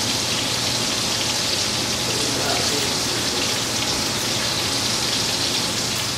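Bacon sizzling in a frying pan on a gas stove, a steady hiss with scattered crackles of spitting grease.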